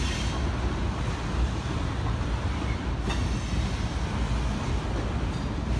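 Covered hopper cars of a grain train rolling over an elevated steel railway structure: a steady low rumble of wheels on rail, with one brief sharp click about three seconds in.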